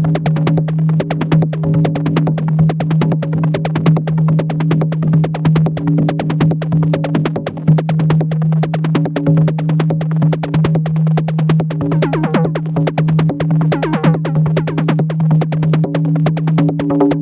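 Glitchy electronic synthesizer patch processed through a Befaco Iroi effects module: a steady low drone under a fast, dense run of clicks. Warbling pitch sweeps come in about three quarters of the way through.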